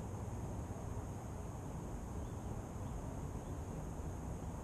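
Steady low wind rumble fluttering on the microphone of an action camera lying in the grass, with a faint steady high-pitched hiss over it.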